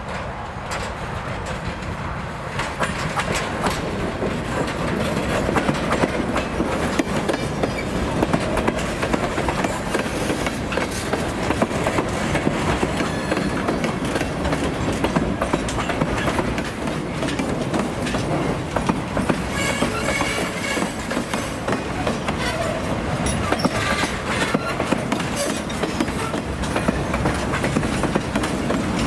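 Freight train's gondola cars rolling past on jointed track: steady rumble of steel wheels on rail, with irregular clicking and clattering as the wheels cross rail joints. The sound grows louder about three seconds in.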